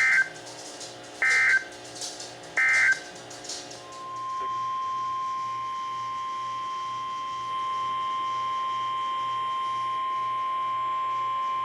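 Three short Emergency Alert System SAME data bursts about a second apart, the end-of-message code closing a warning. About four seconds in, the NOAA Weather Radio 1050 Hz warning alarm tone starts: one steady, unbroken tone lasting about eight seconds, then cuts off abruptly, signalling the next severe thunderstorm warning.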